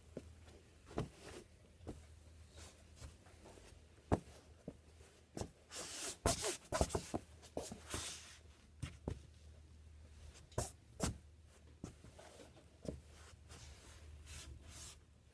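Red Wing Pecos leather boots stepping and scuffing on a foam floor mat: scattered soft taps and scrapes, with a busier run of scuffing about six to eight seconds in. A low hum runs underneath.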